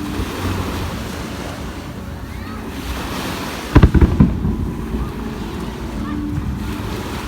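Fireworks bursting: a quick cluster of loud bangs and thuds about four seconds in, over steady wind and beach noise.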